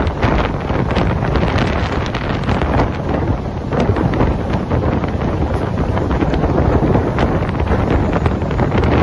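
Loud wind buffeting the microphone held out of a moving train's open doorway, over the steady running rumble of the LHB passenger coach on the track.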